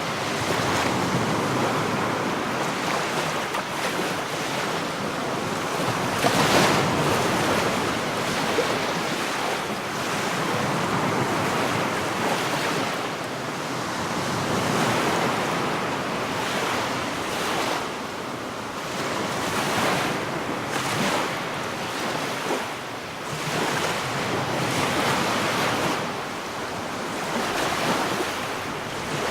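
Sea surf breaking on a beach: a continuous wash of waves that swells and eases every few seconds, with the loudest wave breaking about six seconds in.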